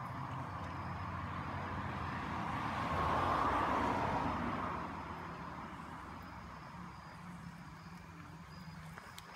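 A vehicle passing by: a rushing noise that swells to its loudest about three to four seconds in and then fades away, over a steady low hum.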